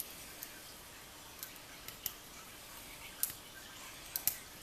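Light, sharp metal clicks at irregular intervals as a hook pick and tension tool work the pins inside a pin-tumbler lock cylinder, the loudest near the end.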